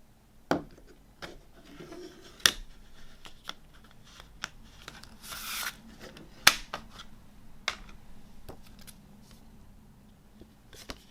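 A CD package being unboxed by hand: scattered sharp plastic clicks and taps, with a short crinkling, tearing rustle about five seconds in.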